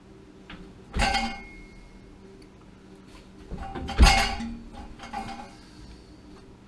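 Two loud metal clanks about three seconds apart, each ringing briefly, with lighter metallic clinks around the second one.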